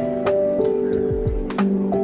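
Background music with a steady beat: held melodic notes over regular kick-drum thuds and sharp percussion clicks.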